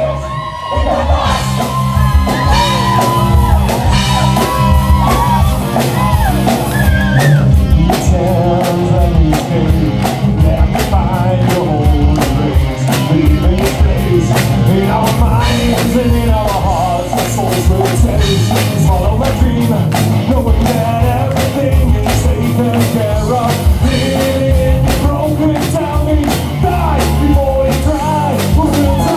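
Live rock band: a male lead singer over electric guitar, bass and drums, with a steady drum beat setting in after the first few seconds.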